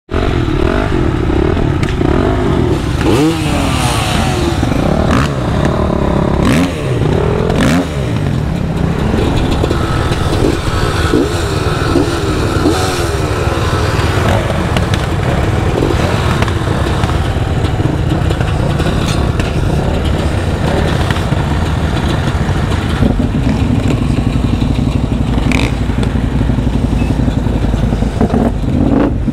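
ATV engine running and being revved, its pitch swelling up and falling back again and again for the first dozen seconds, then running more steadily.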